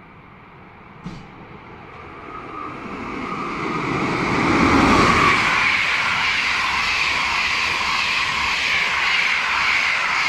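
PKP Intercity passenger train hauled by an EU160 electric locomotive passing through the station at speed. The noise builds over the first few seconds and peaks with a low rumble as the locomotive goes by about five seconds in, then settles into a steady rush of wheels on rail as the coaches pass. A brief sharp click about a second in.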